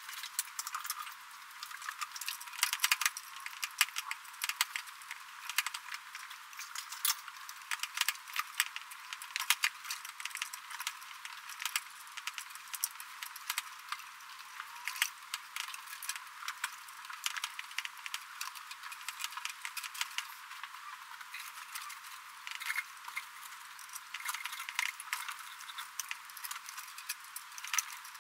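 Wiring harness and its plastic connectors rattling and clicking irregularly as the harness is pulled through a drilled hole in the skid steer's sheet-metal panel. The sound is thin, with no low end.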